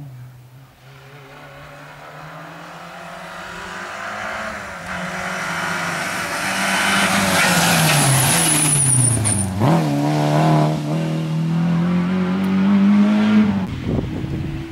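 Citroën AX rally car's engine at high revs, getting louder and higher as it approaches. About ten seconds in the note drops sharply, then climbs steadily again as the car accelerates away. The sound cuts off shortly before the end.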